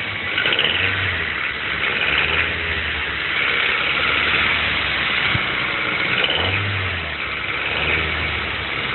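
A Mazda 3's 1.6-litre four-cylinder petrol engine running with a knocking rattle. The engine note swells and fades a few times.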